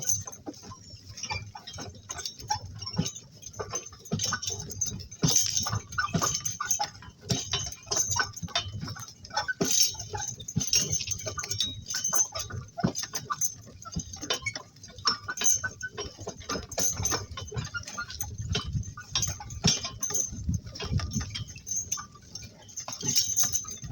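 Work cart pulled by two donkeys rolling along: a busy, irregular run of knocks and clops from hooves and the cart, with a low rumble and light clinking of harness and fittings.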